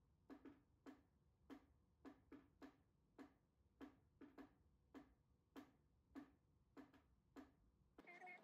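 Faint, short clicks at irregular spacing, about two a second.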